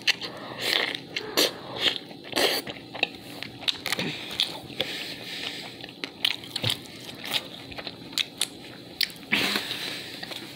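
Close-up eating sounds: a bite into a Burger King Whopper, then chewing with many short wet smacks and clicks of the mouth.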